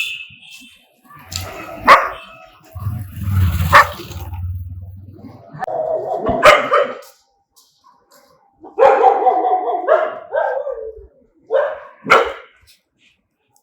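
Dogs barking aggressively in separate bursts with short pauses, with a quick run of barks about nine seconds in and two sharp barks near the end.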